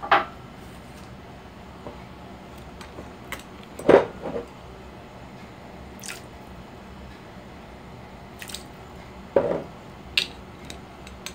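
A few short knocks and clinks at a glass mixing bowl, the loudest about four seconds in, while a thin stream of liquid is poured into the dressing.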